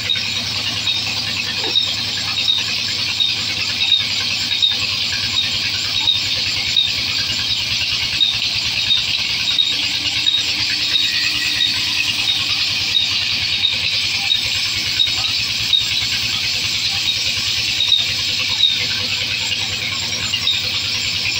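Large wheel-type vertical band saw running as logs are fed through it, its blade making a steady high-pitched squeal. A light regular tick repeats about every two-thirds of a second.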